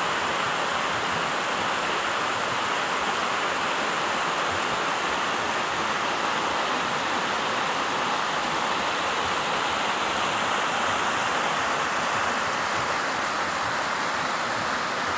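Creek water rushing over rocks in small rapids: a steady, even rush.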